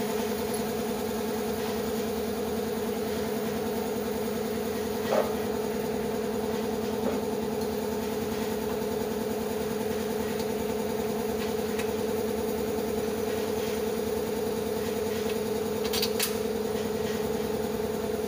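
A steady mechanical hum that switches on just before and holds one even pitch, with a few faint clicks over it.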